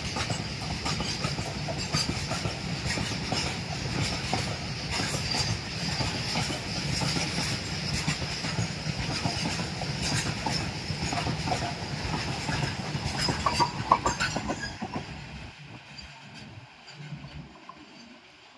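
Goods train wagons rolling past close by: a steady rumble with wheels clattering on the rail joints and a steady high-pitched whine from the running gear. About 15 s in it cuts off abruptly to a much fainter low rumble.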